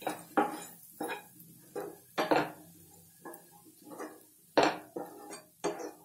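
A wooden spatula stirring and scraping sliced capsicum and onion around a nonstick kadai as they sauté with spice powders. It makes about ten uneven strokes, roughly one or two a second.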